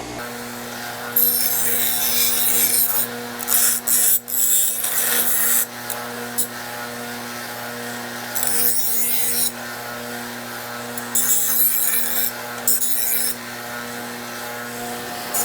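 A power tool running with a steady hum while the edges of a freshly cut bracket piece are deburred on it; five or six stretches of loud grinding hiss come and go as the piece is pressed against it.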